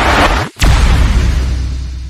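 Loud rushing noise that drops out abruptly about half a second in, then a sharp crack and a deep booming rumble that slowly fades: an explosion-style sound effect.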